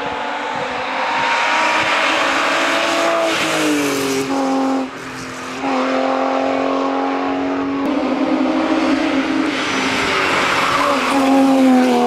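BMW hill-climb race car's engine running hard at high revs. Its pitch drops a couple of times, and the sound dips briefly about five seconds in, as at a lift off the throttle.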